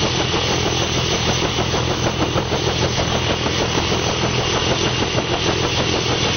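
Helicopter on the ground with its engine and main rotor running: a steady, loud engine noise with a fast, even beat from the rotor blades.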